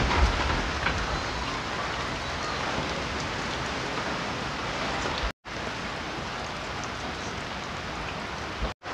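Heavy typhoon rain and wind: a steady, dense hiss, with wind rumbling on the microphone in the first moment. The sound drops out twice for an instant.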